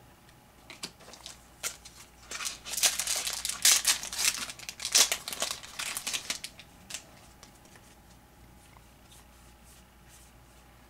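Foil wrapper of a baseball card pack being torn open and crinkled, a dense rustling that is loudest in the first half and dies down to faint handling ticks after about seven seconds.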